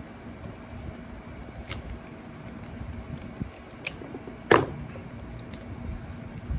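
Sharp metallic clicks and clinks as tools work the cut copper windings out of a refrigerator compressor motor's stator. The clicks are scattered, the loudest about four and a half seconds in, over a steady low hum.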